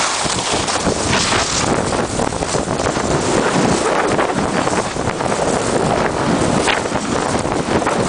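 Wind rushing over the microphone during a fast downhill ski run, mixed with skis hissing and scraping over packed, groomed snow; the noise swells briefly several times as the skis carve.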